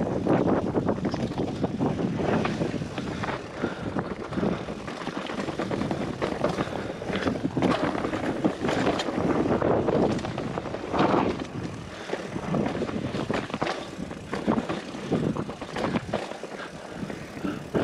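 Mountain bike rolling fast down rocky, gravelly singletrack: tyres crunching over loose stones and the bike rattling over rocks in many short knocks, with strong wind buffeting the microphone.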